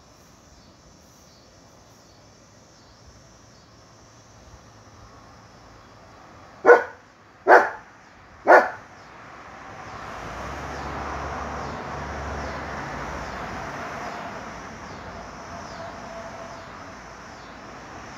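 A dog barks three times, about a second apart. A few seconds later a long swell of rumbling noise rises and slowly fades over several seconds. Faint insect chirping repeats throughout.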